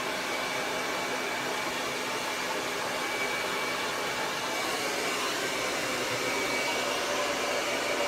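Handheld blow dryer with a concentrator nozzle running steadily on the hair: an even rush of air with a faint high whine.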